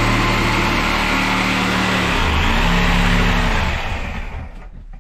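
Corded power drill running steadily at full speed. About two seconds in its pitch dips and bends as it takes load, and near the end it spins down and stops.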